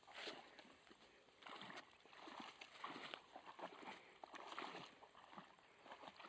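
Faint sloshing and rustling as a dog pushes through tall grass and wades into a shallow muddy puddle, in irregular bursts.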